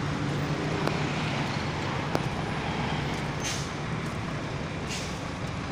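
Steady low hum of a heavy vehicle's diesel engine running, over a constant wash of outdoor noise, with a few faint clicks.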